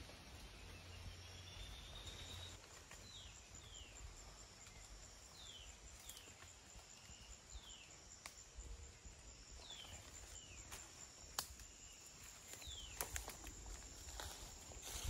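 Rainforest ambience: a steady high insect whine, with short falling whistle calls repeating every second or so and one rising call early on. A single sharp click comes about three-quarters of the way through.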